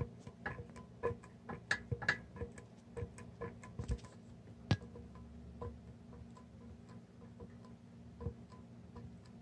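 Sunny Health & Fitness SF-B1002 exercise bike being turned over, giving faint, uneven light clicks and ticks, a few a second, over a low steady hum. It is the slight bumpiness of a bent axle.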